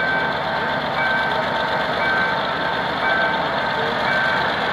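Level-crossing warning beeper sounding about once a second, over the steady running of a GM G-22W diesel locomotive's engine as the passenger train pulls away.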